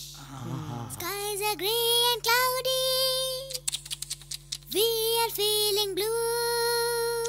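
Song on the soundtrack: a high voice sings long held notes in two phrases over a steady backing of low sustained tones. Between the phrases there is a short run of quick clicks.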